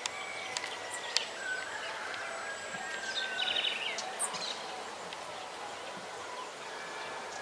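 Outdoor rural ambience with birds calling: a long whistled note about a second and a half in, then a quick trill of rapid notes near the middle, over a steady background hiss and a few sharp ticks.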